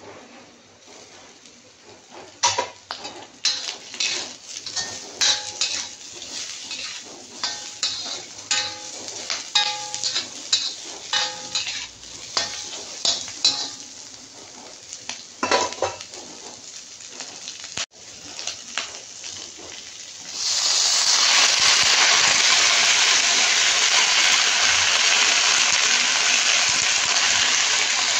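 A metal spatula clinks and scrapes against a wok during stir-frying, over a light sizzle of frying. About twenty seconds in, a loud steady sizzle starts as wet leafy greens hit the hot oil.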